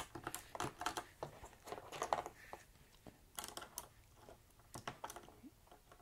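Thick blank PBT keycaps being pushed down onto the stems of mechanical keyboard switches: a faint, irregular run of small plastic clicks and taps.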